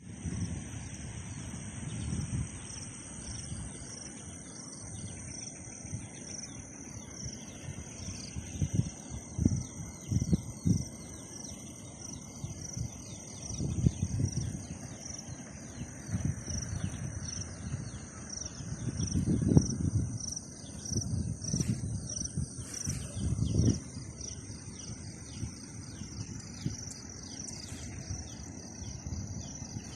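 A steady chorus of insects trilling at a high pitch, one of them pulsing at an even beat of a little more than once a second, with some bird chirps. Several low rumbles rise and fall through it.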